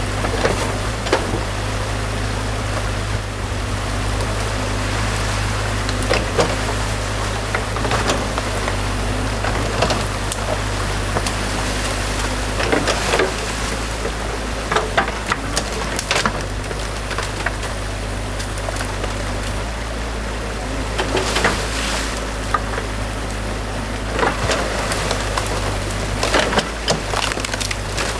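Compact excavator's diesel engine running steadily while the bucket tears branches and mud out of a beaver dam, with repeated sharp cracks and knocks of wood. Water rushes underneath.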